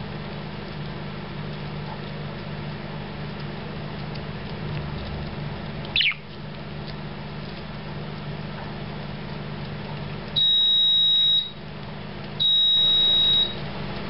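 Two electronic beeps at a steady high pitch, each about a second long, one after the other near the end; they are the loudest sounds. A single short falling chirp comes about six seconds in, over a steady low hum.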